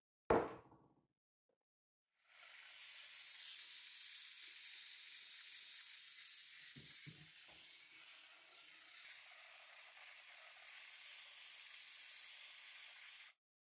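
A single hammer blow on a steel letter punch, then a handheld gas torch hissing steadily for about eleven seconds as its flame heats a braided copper cuff, cutting off suddenly near the end. A couple of dull knocks come about seven seconds in.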